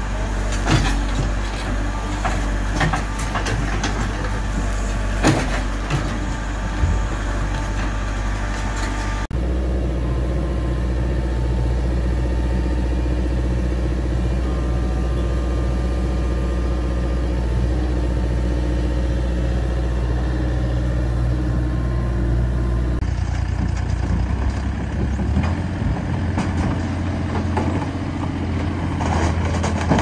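Diesel engines of construction machines running. First a JCB backhoe loader works with clanks and knocks as its bucket moves through debris. After a sudden change about nine seconds in, a tracked excavator's engine runs steadily, and about two-thirds of the way through a Bobcat E35 mini excavator's engine takes over.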